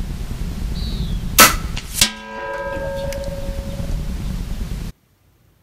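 Sig Sauer ASP20 .22 gas-piston break-barrel air rifle fires once with a sharp report a little over a second in. About two-thirds of a second later the pellet strikes a steel target at 100 yards, which clangs and rings with several tones fading over about a second.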